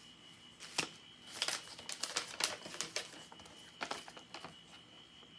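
Paper and packaging rustling and crinkling in a series of short, irregular bursts as it is handled and opened.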